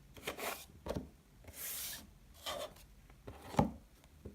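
2016 Donruss Optic trading cards being handled and slid over one another: several short swishes of card on card, one longer slide near the middle, and a sharp tap of a card set down about three and a half seconds in.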